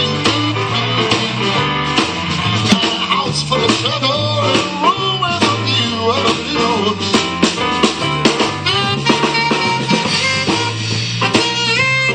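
Live blues-rock band playing at a sound check: electric guitar, bass and drums, with a steady repeating bass line and bending lead lines.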